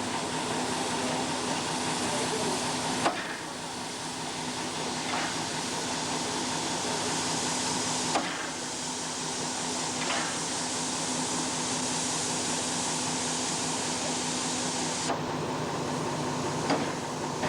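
A steam engine hissing steadily over a constant low hum. The sharper, higher hiss stops about three seconds in, comes back near eight seconds and stops again near fifteen, each change marked by a light click as if a valve or cock were opened or shut. A few more single knocks fall in between.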